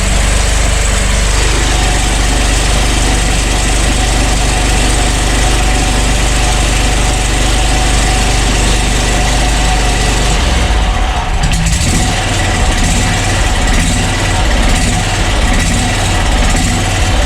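Wright Stander ZK stand-on mower's engine running steadily just after starting on a new starter. About ten seconds in its note changes and turns rougher and more uneven.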